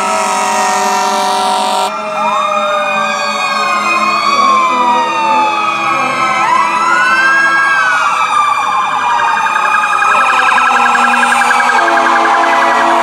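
Several emergency-vehicle sirens of passing fire engines and EMS vehicles sounding at once, their wails rising and falling over one another. A steady horn blast sounds in the first two seconds, and a fast warbling yelp joins about ten seconds in.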